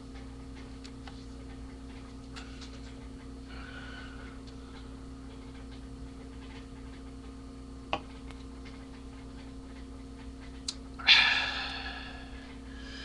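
Steady low hum with faint scattered ticks and a single sharp click about eight seconds in, then a loud sudden hissy burst of noise about eleven seconds in that fades away over a second or so.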